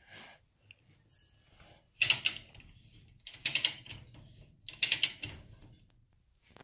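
A hand ratchet being worked in three strokes about a second and a half apart, each a quick run of pawl clicks, with faint metal rattles in between.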